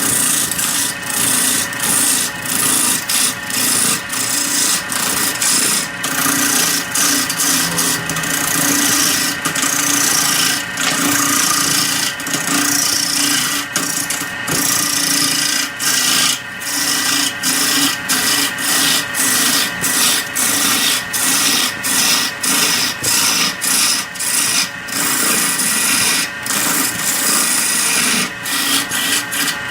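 Wood lathe running while a hand turning tool cuts the spinning red wood blank: a steady cutting hiss broken by frequent short gaps, over a steady hum.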